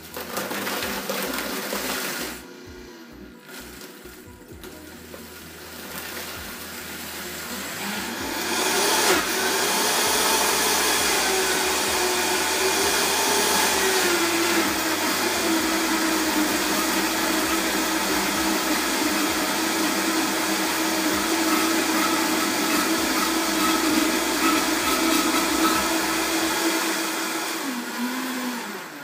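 Vitamix blender blending leafy greens into a smoothie. A short loud burst at the start drops back to a lower speed, then the motor ramps up over a few seconds to a steady high-speed whir with a droning hum. Near the end it winds down, falling in pitch as it is switched off.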